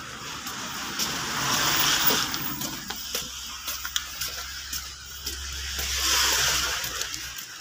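Cars passing on a slushy street, their tyres hissing through wet snow; two pass, loudest about two seconds in and again about six seconds in, the second with a low engine rumble beneath it.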